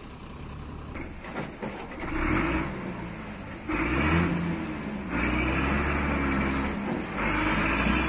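Diesel engine of a loaded truck revving in several surges as the truck manoeuvres, after a fairly quiet first two seconds.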